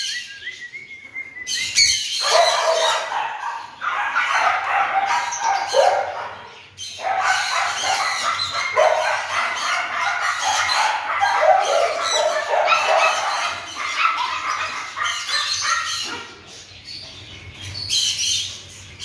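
Labrador puppies play-fighting, with a near-continuous run of high-pitched squeals and yips and short cries that fall in pitch. It eases off about three seconds before the end.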